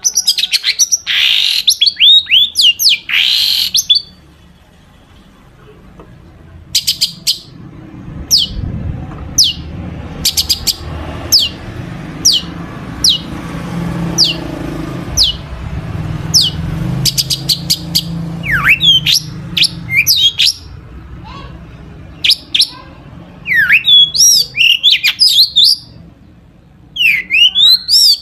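A long-tailed shrike (cendet) singing loudly: clusters of sharp, fast downward-sweeping notes, then single sharp notes repeated about once every 0.7 s, then varied slurred calls again near the end. This is a 'full isian' song, mixing the shrike's own notes with imitated calls of other birds. A low rumble runs underneath through the middle.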